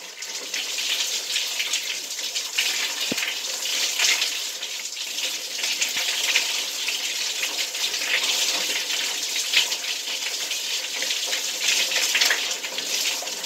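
Handheld shower running, a steady spray of water hissing and splashing in a small tiled shower stall.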